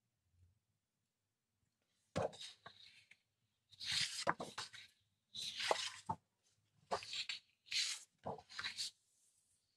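Large sheets of scrapbooking paper being flipped over and laid down by hand: a run of rustling swishes and soft slaps, starting about two seconds in.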